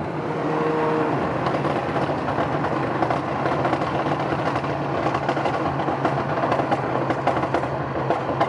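Performance-tuned Alfa Romeo Giulia's turbocharged four-cylinder engine and exhaust, heard from inside the cabin while driving at a steady pitch. Loud exhaust drone with many short, sharp crackles over it.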